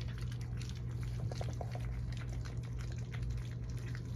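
Several puppies lapping and smacking at wet puppy mush in a shared bowl: a steady stream of small wet clicks and slurps, over a steady low hum.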